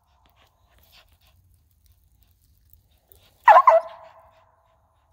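A squirrel dog barking treed at a squirrel up a tree: two quick barks about three and a half seconds in, trailing off over the next second.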